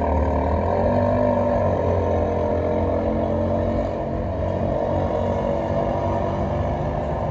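A car engine running with a steady low hum, its pitch drifting slightly up and down.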